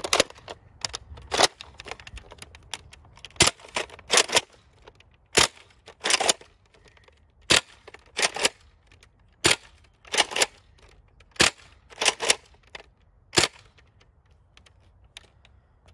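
Nerf N-Strike Longstrike CS-6, a spring-powered foam-dart blaster, being fired repeatedly with Streamline darts: a sharp pop about every two seconds, with a quick double clack of the priming bolt being pulled back and pushed forward between shots.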